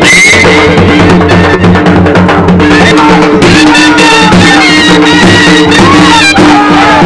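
Loud Punjabi folk music led by dhol drums beaten with sticks in a steady rhythm, with a melody line above that bends up and down over a held tone.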